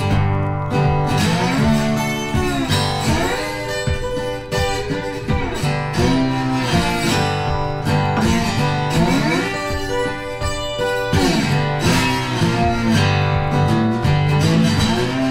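Background music led by acoustic guitar, with notes that bend and glide.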